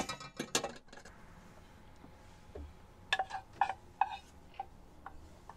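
A serving utensil knocking and scraping against a small metal saucepan as food is spooned out onto a plate: a quick cluster of clinks at the start, then a run of about half a dozen short, ringing taps about three seconds in.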